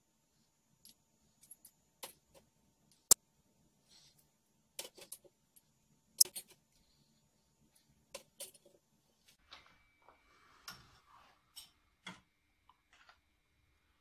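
A metal spoon clinking and tapping against a glass bowl and a steel portafilter as extra-fine ground coffee is scooped into the basket: scattered sharp clinks, the sharpest about three and six seconds in, with softer scraping near the end.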